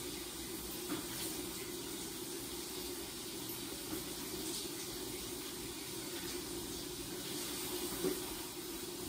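Shower running steadily behind a glass shower door, an even spray of water, with a couple of faint brief knocks.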